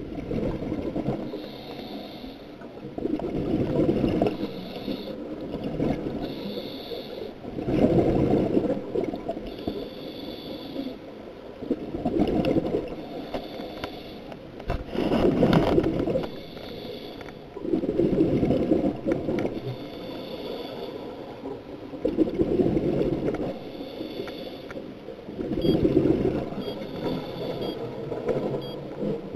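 Scuba regulator breathing underwater: a hissing inhale through the regulator, then a bubbling, gurgling exhale. The cycle repeats about every four seconds.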